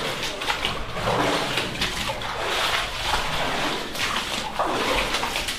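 A person wading through deep water, the water sloshing and splashing in repeated surges with each stride.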